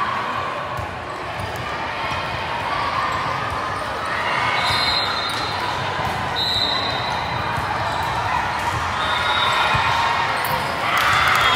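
Indoor volleyball rally: the ball being struck and bouncing on the court, with spectators' voices throughout. The crowd noise swells near the end as the point finishes.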